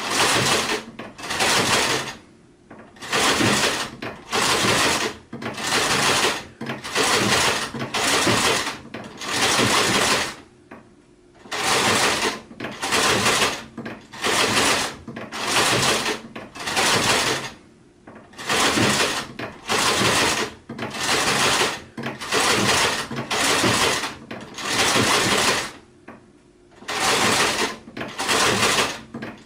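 Sewing machine stitching in short runs of about a second, stopping and starting over and over, with a few slightly longer pauses between runs.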